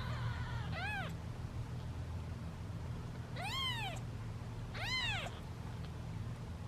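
Hungry British shorthair kittens meowing while waiting to be fed: three separate meows, each rising then falling in pitch, about a second in, about three and a half seconds in and about five seconds in, over a steady low hum.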